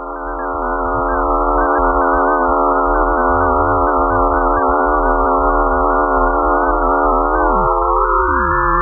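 Sonification of space data turned into sound: a dense chord of steady electronic tones over a low hum. Near the end some tones slide downward while others glide upward into a higher cluster.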